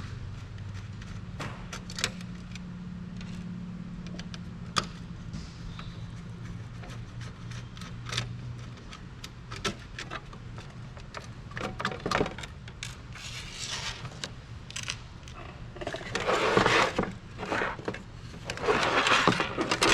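Hands handling wiring harness connectors on a metal avionics rack: scattered clicks and small metallic rattles, then louder rustling and scraping near the end, over a steady low hum.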